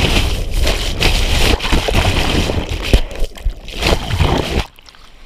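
Ocean surf washing over a handheld action camera, heard partly underwater: loud rushing and sloshing water against the camera. It drops away abruptly near the end.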